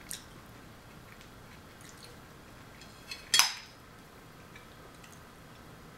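Metal fork tapping and clinking on a ceramic plate while picking up olives: a small tap at the start, then a light tap and a louder ringing clink a little past halfway.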